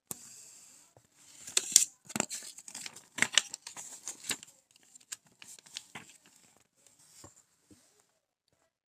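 Paper crinkling and rustling as a folded instruction sheet is handled, in quick irregular crackles that are busiest over the first few seconds, then thin out to a few scattered rustles and stop a second before the end.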